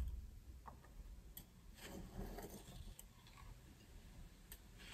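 Faint scratching of a marker drawn around a round container on a sheet of paper, with a couple of soft clicks.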